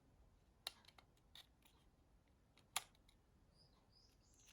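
Near silence broken by a few faint clicks and taps of small plastic phone parts being handled and fitted, the loudest a little under three seconds in.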